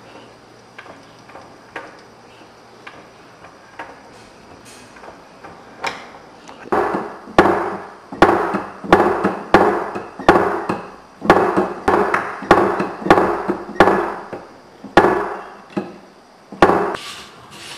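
Hand-cranked wooden mechanism model: light clicking at first, then wooden parts knocking together in a steady rhythm, about two loud knocks a second, stopping shortly before the end.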